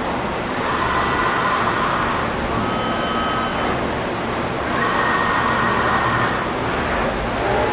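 Horn Metric CNC50MRE2-RBE all-electric CNC tube bender running through a bend cycle. Its electric drives whir in two spells, about a second in and again about five seconds in, over a steady factory rumble.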